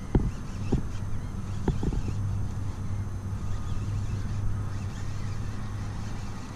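A hooked speckled trout being reeled in on a baitcasting rod from a small boat. A steady low hum runs under it and fades near the end, with a few sharp knocks in the first two seconds.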